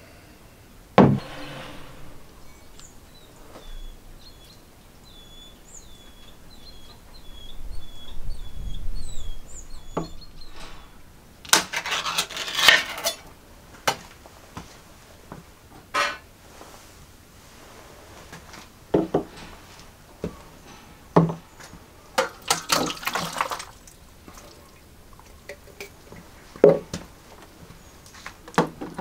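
Scattered knocks and clinks of things being handled, with two spells of rustling or scraping. A run of short high chirps comes a few seconds in.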